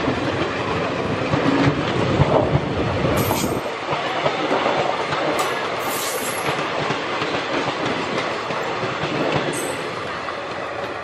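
Passenger train coaches rolling past close by, their wheels clattering over the rail joints, with a few brief high-pitched wheel squeals. A deep rumble underneath drops away about three and a half seconds in.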